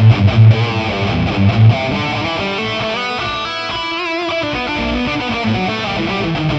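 Distorted electric guitar played through the Amped Dual plugin, a model of a 2000s Mesa Boogie Dual Rectifier amp, with a custom impulse response loaded. It opens with heavy low palm-muted chugs, then moves into a lead line of held and bent notes.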